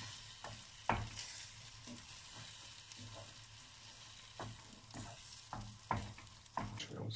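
Scrambled eggs with spinach sizzling in a frying pan while a wooden spoon stirs and scrapes them, with a steady hiss and scattered knocks of the spoon against the pan, the loudest about a second in.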